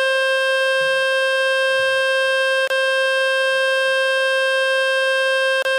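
Speaker-cleaning tone from the Fix My Speaker website: a loud, steady, buzzy mid-pitched tone, played to shake dust and water out of a phone's loudspeaker. It breaks off for an instant about halfway through and again near the end.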